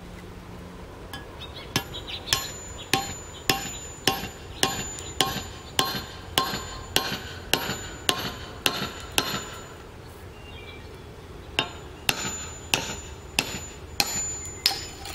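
A steel hammer striking the spine of a thin Elmax stainless knife, driving the blade tip-first through a concrete cinder block. The blows come about two a second, each with a sharp metallic ring. They pause for about two seconds partway through, then resume.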